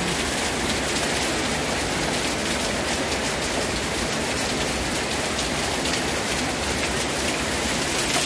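Steady rain falling, an even hiss of rain on the ground and surroundings.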